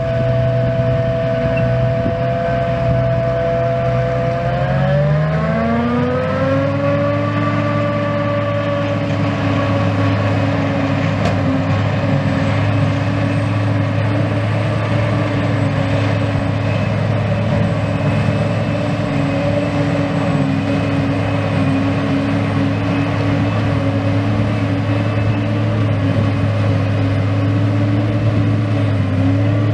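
John Deere 8800i self-propelled forage harvester chopping grass, with a tractor running alongside: a steady machine drone with a whine over it. About five seconds in, the tones shift pitch, some rising and some falling, then hold steady again.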